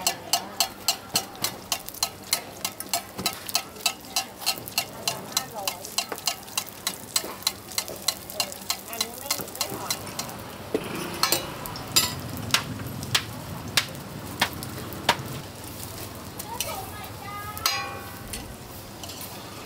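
A ring of roti dough frying in oil on a flat roti griddle, sizzling, while a metal spatula and fork tap against the pan about three times a second. About ten seconds in the tapping thins to a few louder single knocks.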